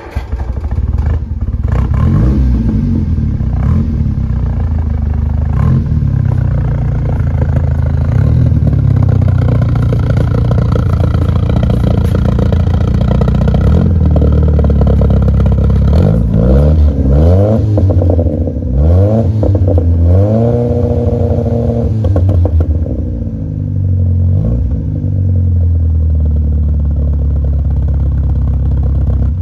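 Triumph Spitfire's four-cylinder engine through a quad-tip exhaust, starting up and settling to a steady idle. A little past halfway it is revved in several rising and falling blips and held up briefly at higher revs, then drops back to idle and cuts off at the end.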